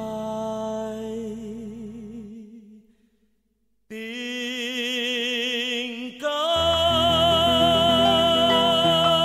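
Music: a singer holds a long note with vibrato that fades out into a brief silence. A second held vibrato note follows, and the full accompaniment with bass comes in about two-thirds of the way through.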